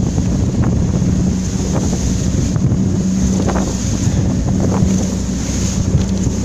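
A small motorboat's engine runs steadily under way, with wind buffeting the microphone. The hull slaps through choppy wake waves about five times.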